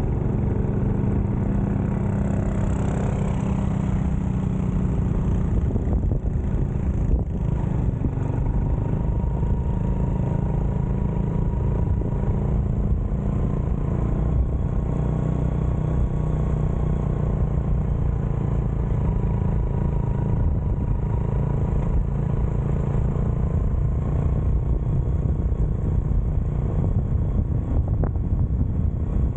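Motorcycle engine running steadily while riding, with constant road noise.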